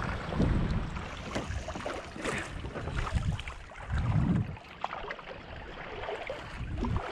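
Water splashing and lapping around a kayak, with wind gusting unevenly on the microphone.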